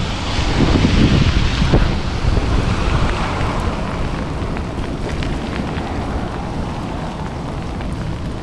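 Wind rumbling across the microphone of a rider moving on an e-bike through steady rain, with the rain noise over it.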